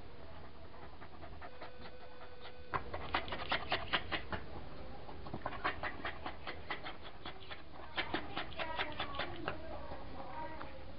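Small dog moving about in a wire crate, with bursts of quick, irregular clicks and taps starting about three seconds in.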